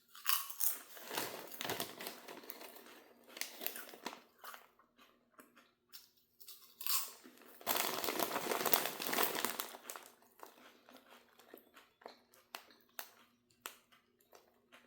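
Potato chips being crunched and chewed, with a chip bag crinkling; the loudest stretch comes about eight seconds in, after which there are only scattered faint crunches and clicks.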